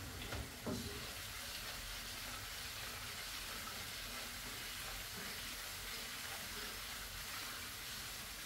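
Diced vegetables and flour frying in a pan with a steady, even sizzle as a vegetable roux browns, stirred with a wooden spatula, with a couple of light knocks of the spatula in the first second.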